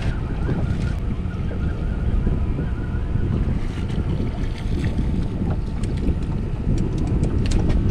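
Wind buffeting the microphone in a steady low rumble on an open boat, with water lapping at the hull and a few faint clicks in the second half.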